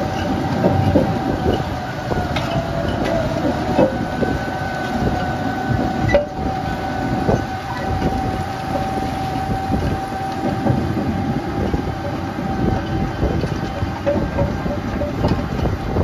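Heavy mining machinery running: a continuous low rumble with irregular clanking and rattling, over a steady mechanical whine.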